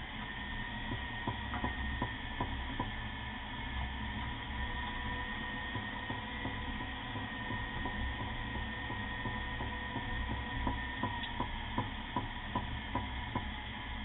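Knocking from the brakes of a 2001 Jeep Grand Cherokee under braking: a series of short knocks, about three a second, in time with the wheel's turning, over a steady driving hum. The knock began after new brake pads and rotors were fitted.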